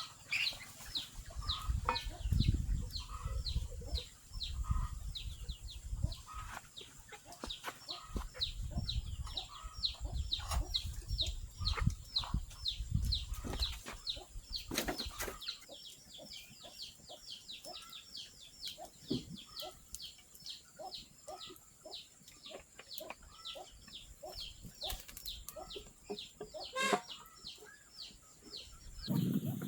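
A bird chirping on and on in short downward-falling peeps, about three a second. A low rumble sits under the first half, and there are a couple of sharp clicks later.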